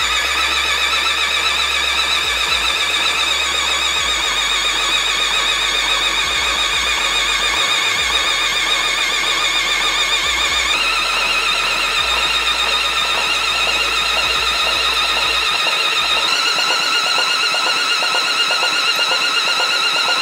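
Electric drill whining steadily as it turns a Nissan SR20DET engine over by its crankshaft pulley, spinning the oil pump to prime the oil system and valve train before first start. The whine steps up slightly in pitch twice.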